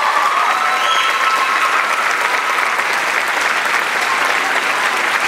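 Audience applauding steadily, with a few high cheers or whistles over the clapping in the first second or so.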